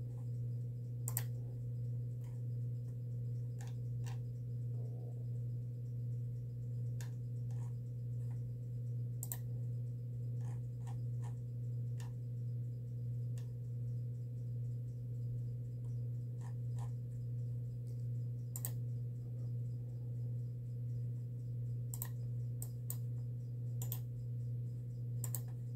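Steady low electrical hum, with scattered light clicks of a computer keyboard and mouse.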